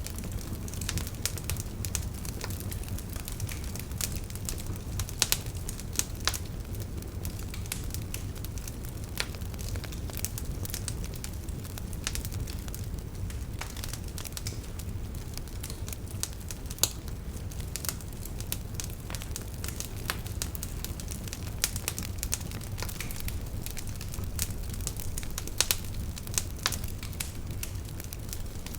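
Fire burning in a fireplace: a steady low rumble of the flames with irregular sharp crackles and pops, a few of them louder, scattered throughout.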